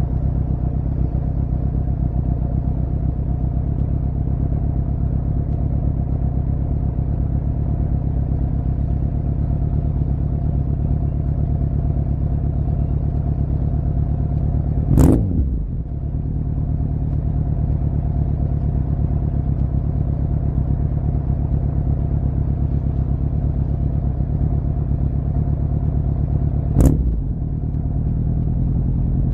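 2006 Suzuki GSF650 Bandit's inline-four engine idling steadily through a cut-down, unbaffled Beowulf exhaust, blipped twice with a quick rise and fall in revs, about halfway through and again near the end.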